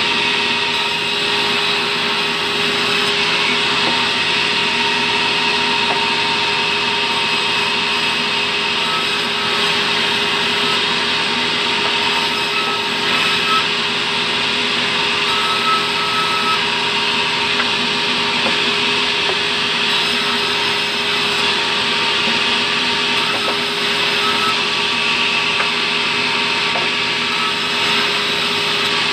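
Sawmill band saw running and ripping fibrous terap timber into planks: a loud, steady machine noise with a constant hum under it.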